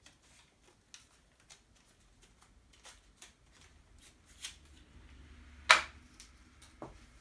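Handling noise from a coiled HDMI cable being turned over and unwound: scattered soft clicks and rustles, with one louder sharp click late on.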